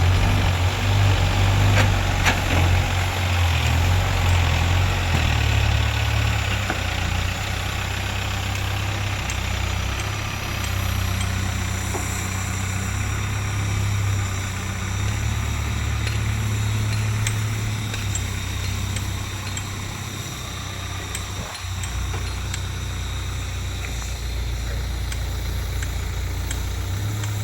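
Heavy diesel engine running steadily at low revs, a deep even hum.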